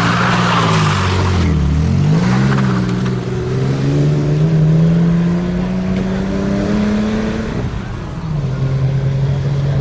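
TVR Tasmin wedge sports car's engine pulling hard under load up a steep hill. The revs dip sharply about a second and a half in, then climb steadily for several seconds, and drop near the end to a steady lower note.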